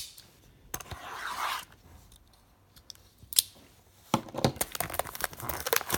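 A hockey-card hobby box and its plastic wrap being opened by hand. There is a soft scrape about a second in and a sharp click a little after three seconds, then crackling crinkling from about four seconds on.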